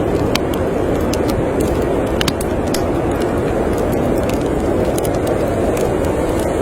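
Storm wind blowing steadily in a low, even rush, with a wood fire crackling in a fireplace: scattered sharp pops and ticks on top.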